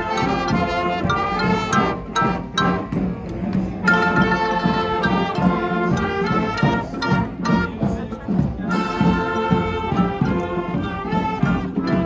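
Street brass band playing a tune, led by trumpets and trombone with a saxophone, in phrases of held notes.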